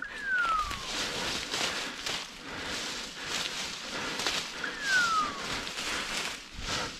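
Footsteps pushing through dry leaves and brush with a steady crackling rustle, and twice a short falling whistle-like tone, about five seconds apart.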